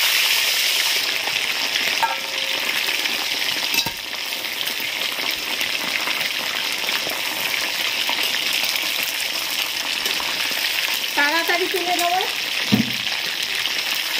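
Batter-coated chicken pieces deep-frying in very hot oil in a kadai: a dense, steady sizzle, loudest in the first moments after the pieces go in. This is the second, high-heat fry that crisps the coating. A single knock comes about four seconds in.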